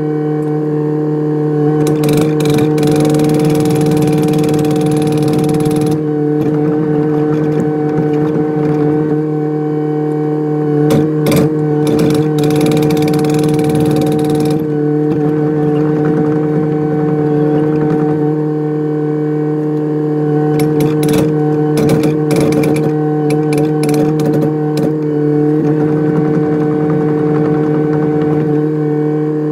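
Kubota excavator's diesel engine running at a steady speed, with scattered knocks and clanks of the working gear over it.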